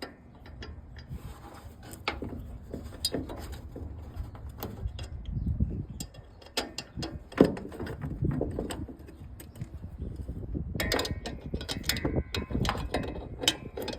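Hand ratchet wrench clicking in short, irregular runs of strokes as it works the door hinge bolts, with the odd metallic clack.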